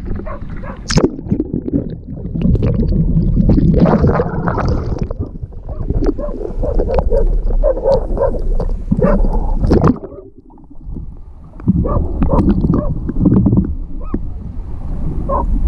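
Sea water sloshing and splashing around a camera held at the water's surface, with wind rumbling on the microphone. It goes quieter for a moment about ten seconds in.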